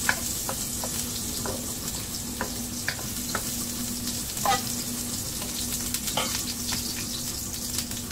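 Ginger pieces sizzling in hot oil in a wok, with a wooden spoon knocking and scraping against the pan now and then as they are stirred. A steady low hum runs underneath.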